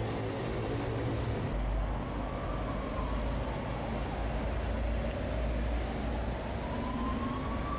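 Low, steady vehicle rumble, with an emergency vehicle's siren wailing slowly down and up from about two seconds in.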